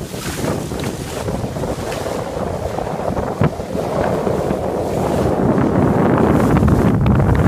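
Water rushing and splashing along the hull of a sailing yacht moving fast through flat sea, with wind buffeting the microphone. A single sharp click about three and a half seconds in.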